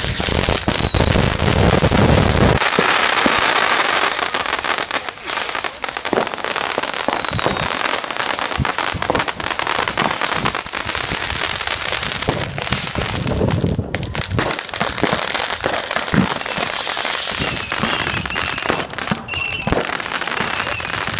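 Fireworks and firecrackers going off continuously, a dense run of sharp bangs and crackles. A falling whistle sounds about six seconds in, and warbling whistles come near the end.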